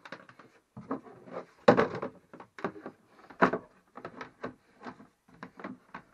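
A plastic battery box cover being handled and fitted down over a boat's leisure battery: a run of knocks, scrapes and rubbing, loudest about two seconds in and again about three and a half seconds in.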